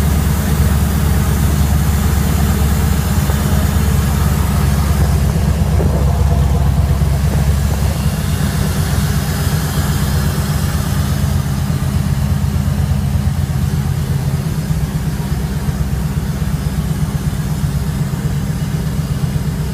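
Boat engine idling steadily with a deep, even low rumble that holds constant without revving.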